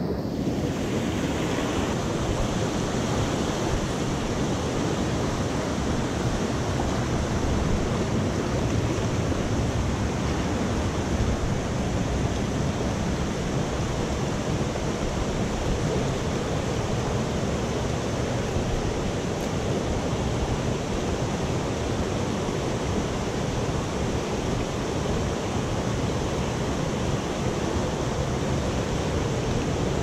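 Steady rush of a swollen mountain stream flowing over rocks close by.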